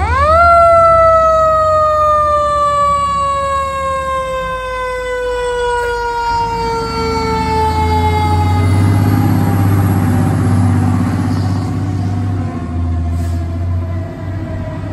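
Federal Q mechanical siren on a fire truck spinning up sharply, then winding down in one long, slowly falling wail. Under it the fire truck's engine grows louder as the truck passes, about eight to twelve seconds in.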